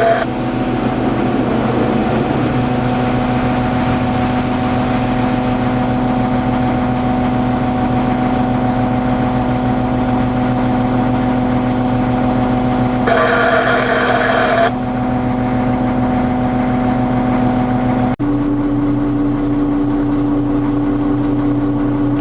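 Heavy construction equipment engine running steadily with a loud, even drone. About 13 seconds in, a brief higher, brighter sound rises over it for a second or two. After an abrupt break about 18 seconds in, the engine note sits slightly higher.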